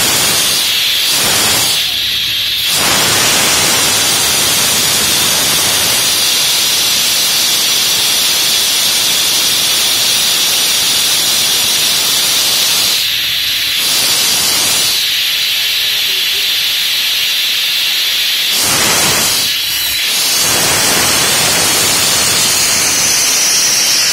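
Loud, steady hiss of compressed air venting from a single-cylinder car-wash lift as it lowers, thinning briefly a few times.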